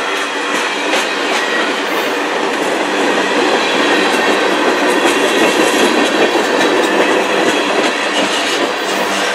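Mixed freight train cars rolling past: a steady, loud rolling noise from steel wheels on rail, with clickety-clack as the wheels cross rail joints.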